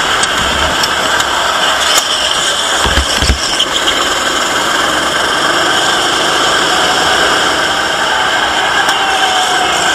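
Racing kart engine heard onboard at speed, running steadily, with a couple of low knocks about three seconds in.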